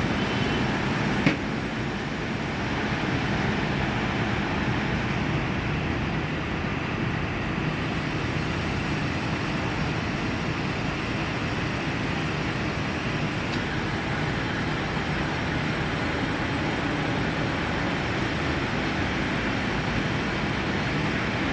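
Steady vehicle and road noise, a continuous even rumble with one short click about a second in.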